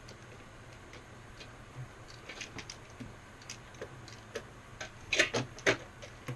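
Light clicks and taps of a motherboard and graphics card being handled and slid into place, with a cluster of sharper knocks about five seconds in.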